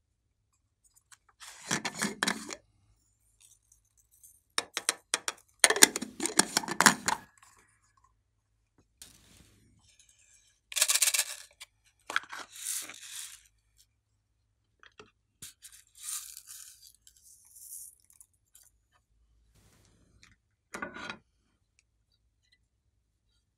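Plastic slime containers being handled and opened by hand: about half a dozen short bursts of crackling, peeling plastic, with quiet gaps between.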